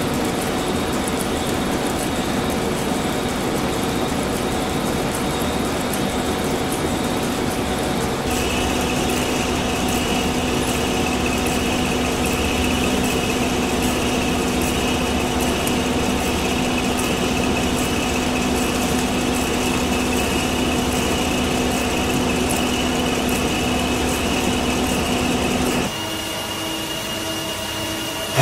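Face milling cutter on a large milling machine cutting a thick steel plate: steady cutting noise with a steady machining whine, and a higher tone joining about eight seconds in. Near the end the sound drops to a quieter milling cut by a smaller cutter on a metal block.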